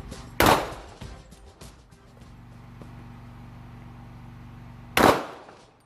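Two gunshots about four and a half seconds apart, each with a short ringing tail, over a low steady hum.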